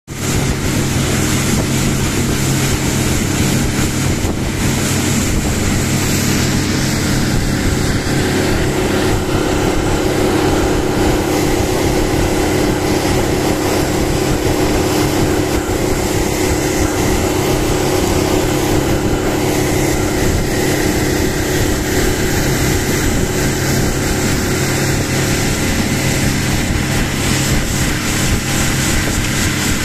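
Small motorboat's engine running steadily at cruising speed, with the rush of wind and water as the hull runs through choppy sea.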